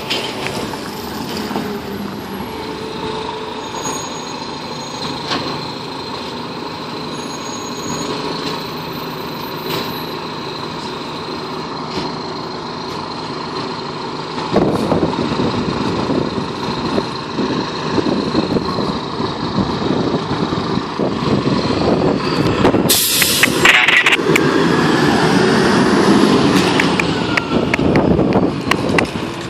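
A 2003 Seagrave fire engine's diesel engine running, first steadily, then louder from about halfway as the rig pulls out and drives off. There is a short, sharp air-brake hiss about two-thirds of the way in.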